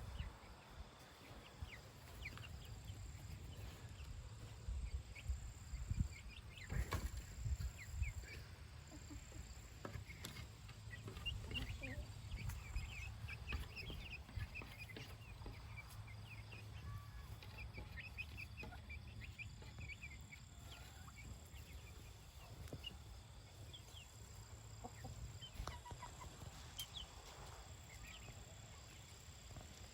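Pet chickens clucking and chirping softly while they eat, with a cluster of low thumps several seconds in.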